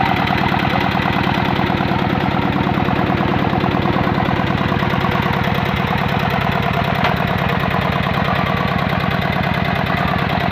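Single-cylinder dompeng diesel engine running steadily at an even, rapid firing beat.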